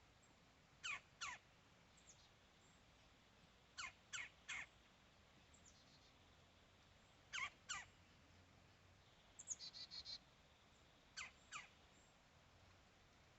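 A bird calling: short calls that sweep sharply downward in pitch, given in pairs and threes every few seconds, with a quick run of about six short notes about nine seconds in.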